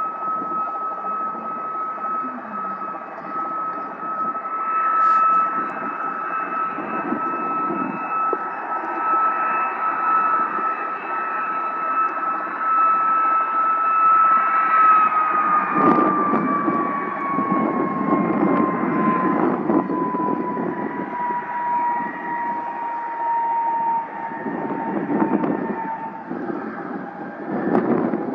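Jet aircraft engine running with a steady high whine over a rushing roar. About halfway through, the whine slowly falls in pitch for around ten seconds.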